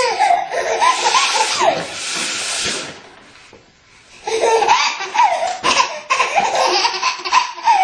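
A woman blowing her nose loudly, a honking hiss, for about three seconds. After a short pause, a baby bursts into repeated belly laughs from a little past halfway.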